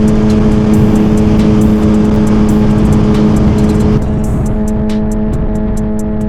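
Suzuki GSX-R1000 inline-four running at a steady cruising speed, a constant engine note with rumble and wind noise. About four seconds in the sound drops a little and changes as music comes in.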